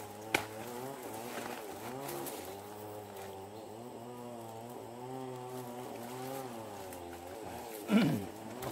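Wild bees buzzing: a steady drone that wavers slightly in pitch, with one bee sweeping past louder and falling in pitch near the end.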